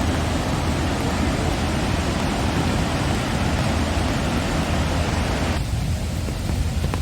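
Steady rushing roar of a large waterfall, Barron Falls in heavy flow. About five and a half seconds in, the upper hiss drops away suddenly, leaving a duller, lower rush.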